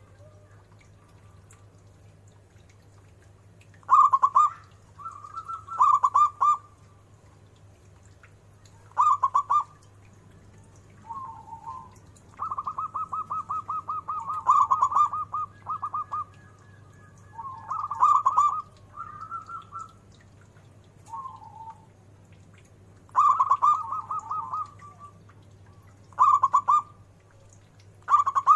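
Zebra dove (perkutut) singing: repeated phrases of rapid staccato cooing notes separated by pauses of one to three seconds, with one long run of even pulsed notes near the middle.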